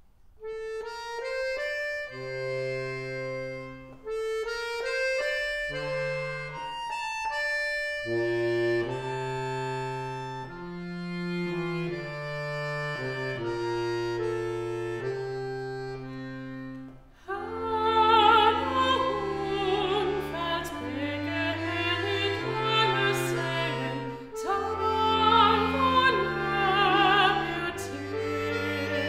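Chromatic button accordion playing a slow introduction of held chords over a stepping bass line. About seventeen seconds in, a woman's classically trained voice with a wide vibrato enters, singing over the accordion.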